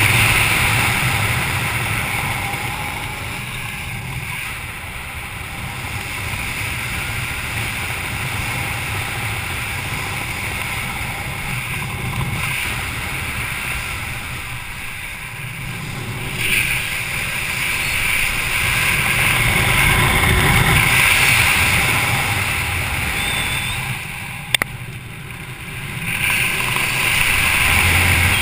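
Wind rushing over a GoPro's microphone during parachute canopy flight, swelling and easing as the canopy turns. A single sharp click sounds about three-quarters of the way through.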